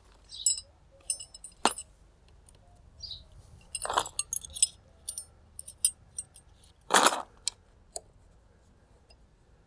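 Metal hand tools clinking and knocking against motorcycle parts as fasteners are tightened. Scattered sharp clinks and taps, with louder knocks about two, four and seven seconds in.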